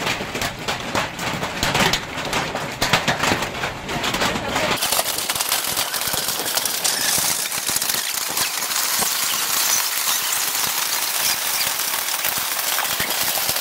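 Heavy hailstorm: hailstones pelting the ground and everything around in a dense crackling clatter. About five seconds in it evens out into a steady hiss of hail and rain.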